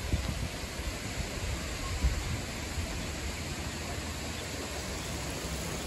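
Steady outdoor hiss of moving air or water, with low wind rumble on the microphone in the first second or so and a brief low thump about two seconds in.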